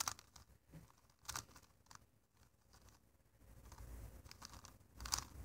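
Megaminx faces being turned through an algorithm: faint, irregular plastic clicks and scrapes as the layers turn.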